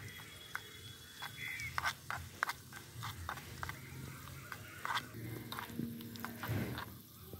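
Small metal spoon clinking and scraping against a miniature aluminium pan while stirring onions in oil, heard as a string of light, irregular ticks.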